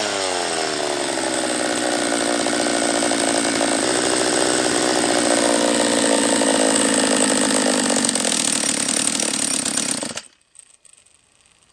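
Husqvarna 44 two-stroke chainsaw engine running, its pitch dropping back and settling after a rev, then cutting out abruptly about ten seconds in. It is not running right; the owner suspects a lower-end vacuum leak.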